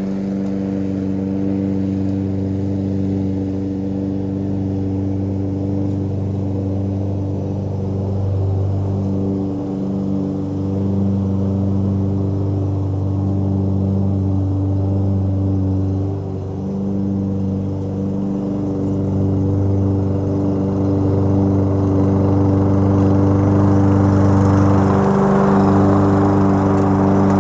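Toro Recycler walk-behind lawn mower's engine running steadily, growing a little louder over the last several seconds.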